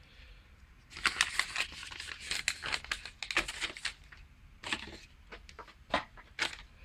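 A large folded paper instruction sheet being unfolded and handled, rustling and crinkling. The crinkles come thick and fast for about three seconds, then break into a few single crackles.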